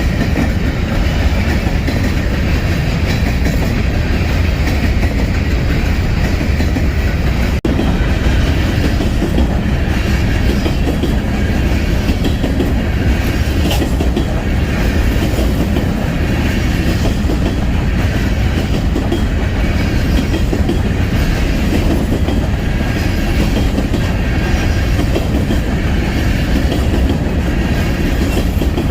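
Freight train rolling past, the steady rumble and clatter of its cars on the rails.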